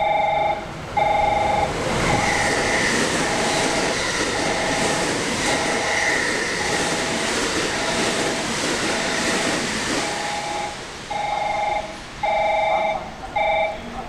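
A through train runs past the platform at speed: a rushing roar with rail-joint clatter and a brief high wheel squeal. Throughout, the platform's electronic warning chime repeats about once a second, heard most plainly at the start and again near the end as the train clears.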